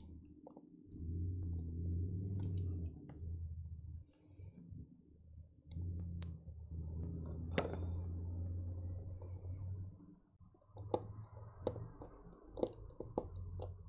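Light clicks and taps of a precision screwdriver and small parts inside a Nintendo Switch as a part that won't seat is worked at, over a low hum that comes and goes in stretches of a few seconds.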